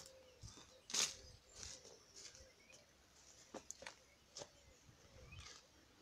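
Wild birds calling in spring: short, sharp, high chirps at irregular intervals, the loudest about a second in.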